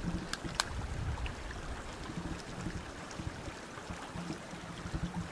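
Low, uneven wind rumble and handling knocks on the camera microphone as a person edges along a fallen tree trunk over a creek, with two sharp clicks within the first second.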